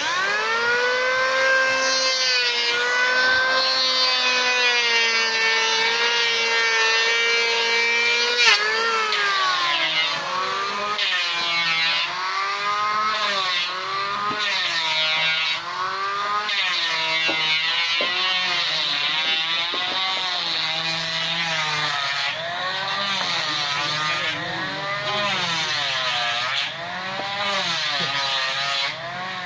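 Handheld electric woodworking power tool spinning up with a rising whine and running at high speed. After about eight seconds its pitch keeps dropping and recovering as it bites into a wooden board.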